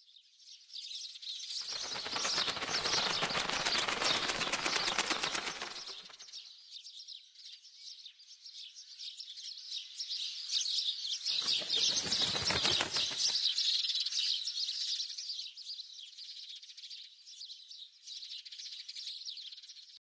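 A flock of small birds twittering throughout, with two swells of many wings flapping as the flock takes off: a long one from about two seconds in to about six seconds, and a shorter one around the middle.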